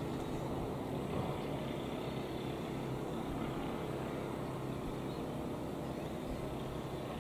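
Steady background rumble with no distinct events.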